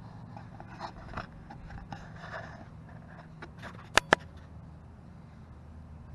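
Handling noise from a handheld camera being moved: faint rustling and scraping over a steady low rumble, with two sharp clicks close together about four seconds in.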